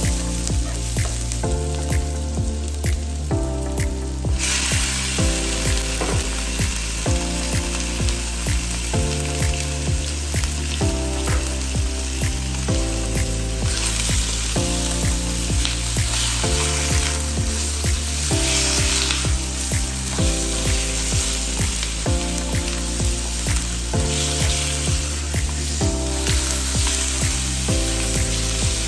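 Sliced onions and then raw chicken pieces sizzling in hot oil in a stainless steel wok as they are stir-fried with a spatula. The sizzle starts about four seconds in and grows louder about halfway through, when the chicken goes in. Background music with a steady beat plays throughout.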